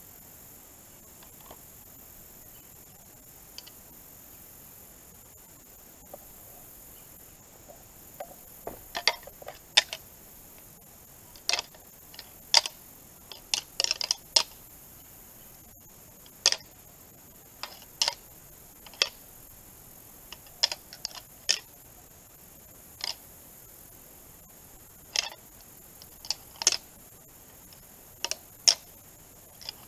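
Light deer-rattling: sharp, irregular clicks and clacks of antler tines ticked together in short flurries, starting about eight seconds in, imitating bucks sparring for dominance rather than a hard fight.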